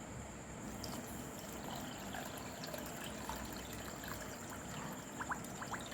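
Water being poured into a bowl of semolina (rava): a faint, steady trickle.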